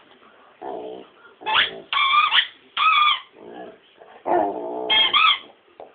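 Rottweiler howling and whining in a string of short calls, some low and some much higher-pitched, with brief pauses between them.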